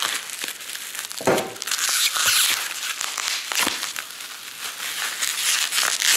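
Plastic bubble wrap crinkling and tearing as it is slit with a knife and pulled off a bottle by hand, with a few sharp ticks among the rustle.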